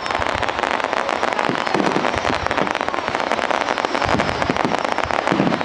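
Fireworks display: a dense, continuous run of rapid crackling pops and bangs, many a second.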